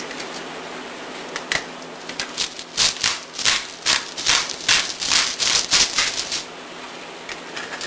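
Hand-held pepper mill grinding black pepper: a quick run of grinding twists, about three a second, from about two seconds in to about six seconds.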